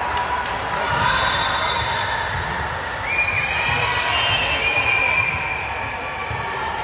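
Echoing ambience of an indoor volleyball gym between rallies: voices and calls carry across the hall, with a few thuds of a ball bouncing on the court floor.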